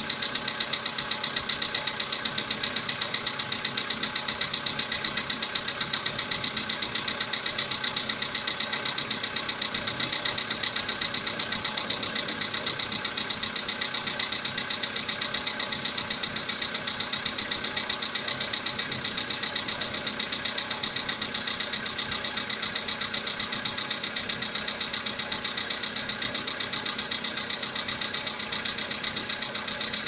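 Volkswagen Polo Sedan's 1.6 CFNA four-cylinder petrol engine idling with a rapid, even knock. The knock appeared at about 80,000 km.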